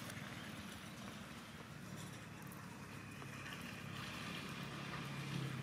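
A motor vehicle passing on a road, its engine a low hum that grows louder near the end, over steady outdoor background noise.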